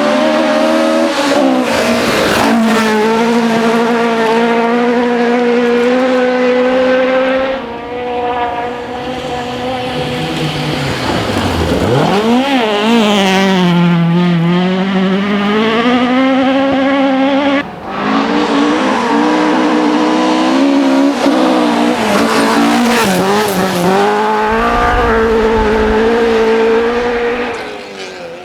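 A rally car's engine running hard at high revs on a gravel forest stage, its pitch held nearly steady for stretches. About twelve seconds in, the pitch drops as the car slows and then climbs again as it accelerates away. The sound breaks off sharply twice, at about eight and eighteen seconds in.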